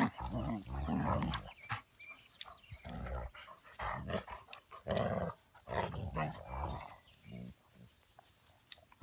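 Anatolian shepherd puppy and adult dog play-fighting: growling in short irregular bursts with brief gaps, thinning out near the end.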